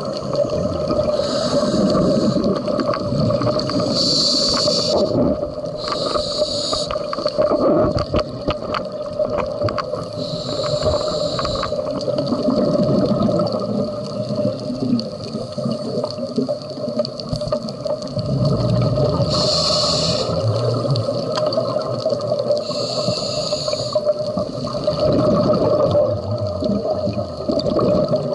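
Scuba regulator breathing heard underwater: a hissing breath every few seconds, each about a second long, alternating with rumbling, gurgling exhaled bubbles, over a steady hum.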